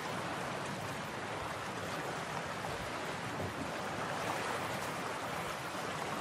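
Steady wash of sea water and waves, with no pitched tones or distinct strokes.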